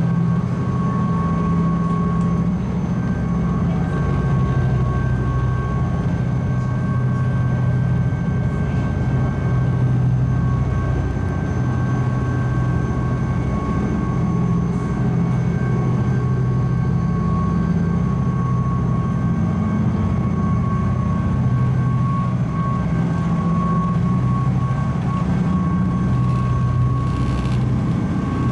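Steady engine and machinery drone of a high-speed passenger ferry, heard inside its cabin: a strong low hum that swells slightly every few seconds, with a few steady whining tones above it.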